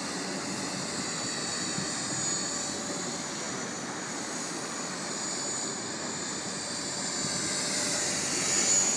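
JR NEX E6 electric radio-controlled helicopter flying, a steady high-pitched whine over a rushing noise, growing louder near the end as it comes closer.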